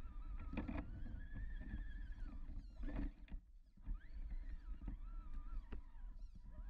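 Whine of the electric motors and gearboxes of radio-controlled scale crawler trucks, rising and falling in pitch as the throttle changes, over a low rumble, with a few sharp knocks.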